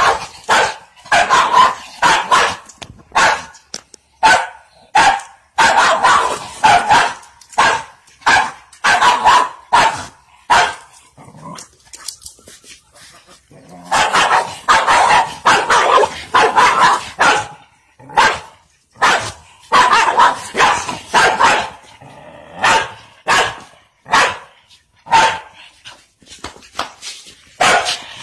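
Dog barking in quick runs of short, sharp barks, going quieter for a couple of seconds about halfway through, as it lunges at and grabs a rooster.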